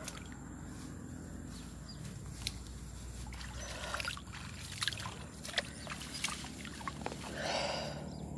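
Handling noises while a freshly caught Channa lucius snakehead is carried through swamp grass: rustling and scattered small clicks, with a short rustling burst near the end.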